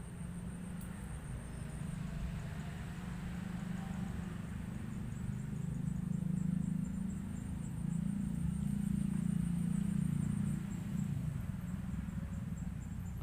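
Low engine hum of a motor vehicle that grows louder and then fades as it passes, with insects keeping up a steady high-pitched drone.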